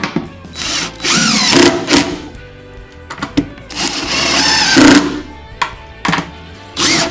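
Cordless DeWalt driver sinking wood screws into the side board of a wooden nest box: two runs of about a second and a half each, with a third starting near the end, the motor whine sliding in pitch as each screw drives in.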